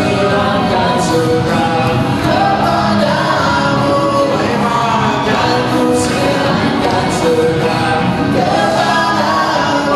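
Live band playing a song, a singer over electric guitars and drums, amplified through PA speakers in a large hall.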